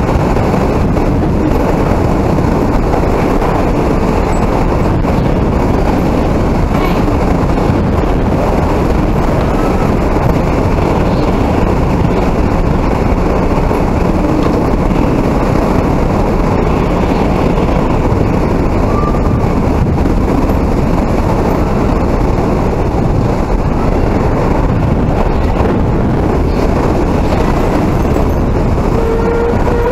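Hurricane wind blowing steadily and buffeting the microphone, a dense low rumble that holds at one level throughout.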